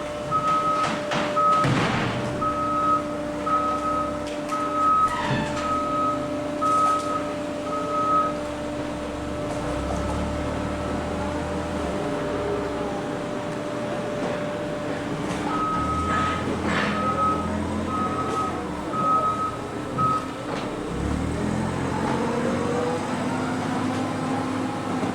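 Industrial baler machinery running with a steady hum, with a warning beeper sounding about twice a second in two spells, the first at the start and the second past the middle, along with some knocks and heavier low surges as the machine works.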